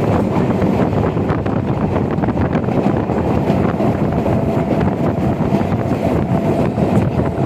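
A train running steadily, a continuous low rumble mixed with heavy wind buffeting on the microphone.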